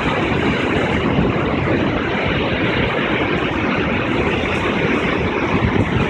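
Large waterfall: a steady, loud rush of heavy falling water, heard close to the brink.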